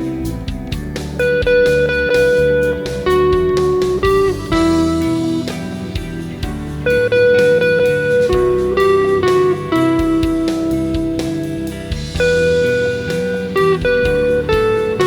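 Electric guitar played through effects pedals, improvising a lead of long held notes with slides between them, over a backing track with drums and bass.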